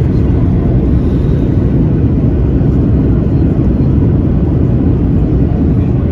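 Steady cabin noise of a Boeing 737-800 in flight: an even, loud, low rumble of airflow and engine noise heard from inside the passenger cabin.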